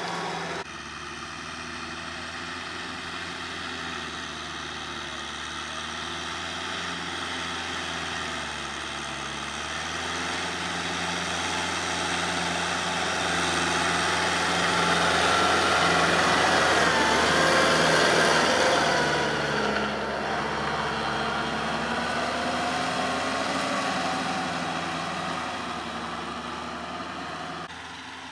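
Kubota L5018 tractor's diesel engine running steadily as it pulls a rotary tiller through paddy soil. It grows louder as the tractor comes close about halfway through, then falls back.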